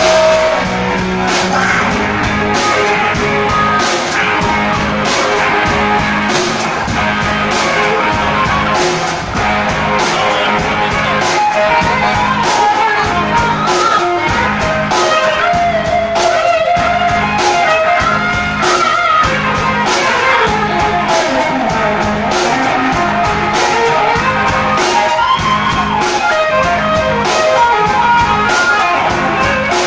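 Live rock band playing in a bar: electric guitar over drums keeping a steady beat, with a singer's voice.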